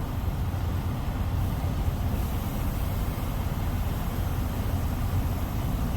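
2017 Freightliner semi truck's diesel engine running with a steady low rumble.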